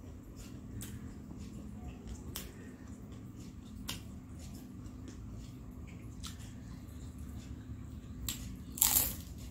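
Close-up mouth sounds of a person chewing a fried Indonesian spring roll (lumpia), with a few soft crunches. Near the end comes a much louder crunchy bite into a fresh piece dipped in peanut sauce. A low steady hum runs underneath.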